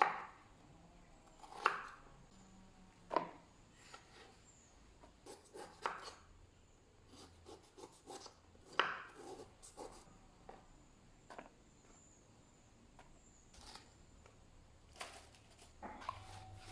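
Irregular light knocks and taps, a second or two apart, with some faint scraping between them, as from handling utensils or chopping in a kitchen.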